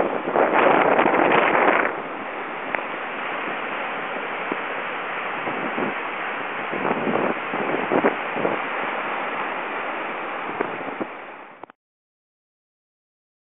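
Steady rush of a river in flood, with wind buffeting the microphone, louder for a second or so near the start. It cuts off abruptly to silence near the end.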